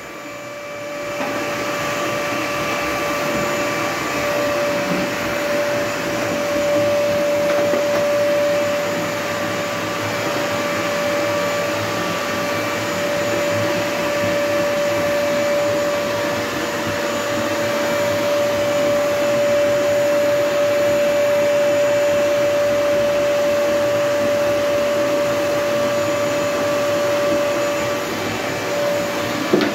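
Vacuum cleaner running steadily with a constant whine over a rushing suction noise; it comes up to full level over the first second or so.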